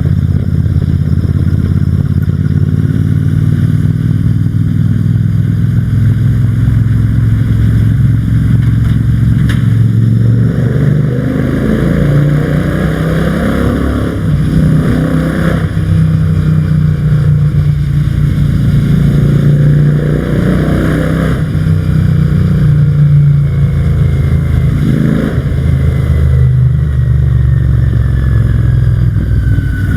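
Royal Enfield Shotgun 650's 648 cc parallel-twin engine rumbling under a rider, echoing inside a tunnel. It runs steadily at first, then from about a third of the way in is revved up and down several times.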